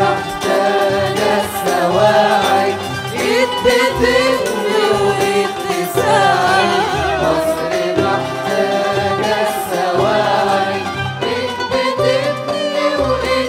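An Egyptian patriotic song sung with an Arabic music ensemble. The vocal line wavers and ornaments over the instruments, with a steady low accompaniment beneath.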